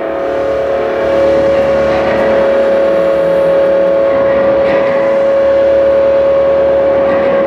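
Experimental electroacoustic improvisation: a loud, sustained drone held on one steady pitch over a rough, rapidly fluttering lower layer.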